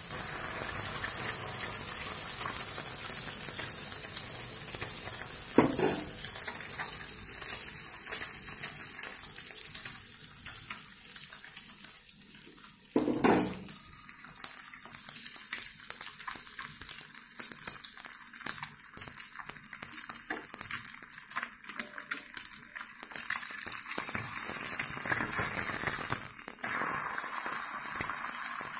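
An egg frying in a hot flat pan, sizzling and crackling steadily. Two louder knocks come about six and thirteen seconds in.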